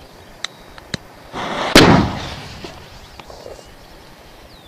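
Class 3 Jumbo Jet firecracker going off about two seconds in: a short rush of noise, then one sharp, very loud bang that dies away over about a second. A couple of faint clicks come before it.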